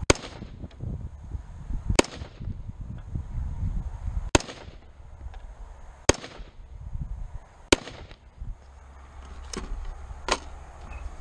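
Springfield Saint Edge AR-15 rifle in 5.56 firing single shots, five loud reports about two seconds apart, each with a short echo. Near the end come two fainter shots.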